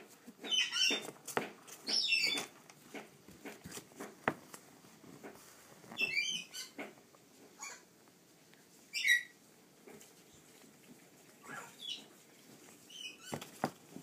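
African grey parrot chick giving short, high squeaky calls every second or two, some sliding down in pitch, along with scuffling, wing flaps and a couple of sharp taps on a wooden floor.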